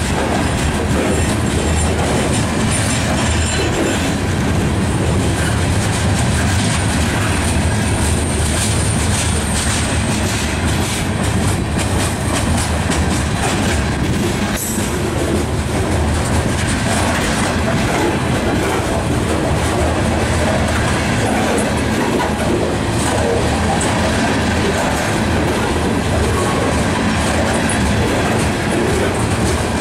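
Covered hopper cars of a freight train rolling past close by: steel wheels rumbling steadily on the rails, with a continuous clickety-clack over the rail joints.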